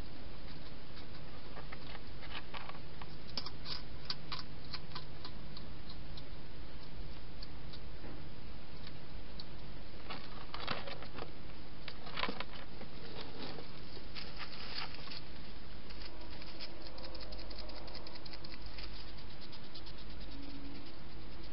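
Wild hedgehog eating at a bowl inside a plastic feeding box: irregular runs of crisp clicks as it chews, over a steady hiss.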